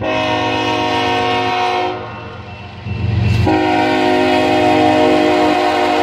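The air horn of a BNSF GE ES44DC diesel locomotive sounding for a grade crossing. It gives a blast of about two seconds, a short break, then a long blast that begins about three and a half seconds in.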